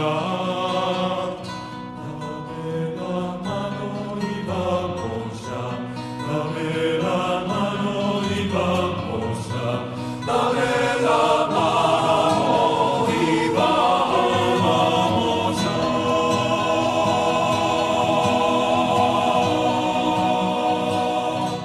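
Background music with no sung words, growing fuller and louder about ten seconds in.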